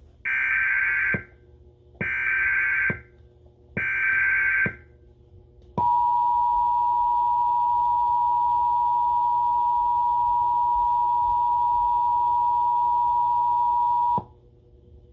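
Emergency Alert System test signal: three short bursts of buzzing digital data tones (the SAME header that encodes the alert), each about a second long, then the steady two-tone attention signal held for about eight seconds before cutting off.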